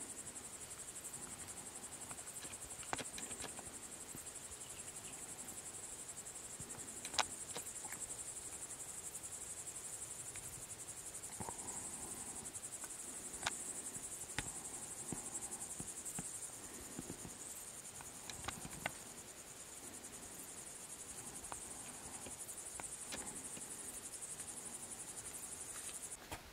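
Crickets chirring in a steady, high, continuous buzz, with a few sharp clicks scattered through, the loudest about seven seconds in.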